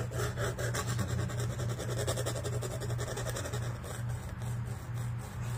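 Graphite pencil shading on drawing paper: a fast, even back-and-forth scratching, over a steady low hum.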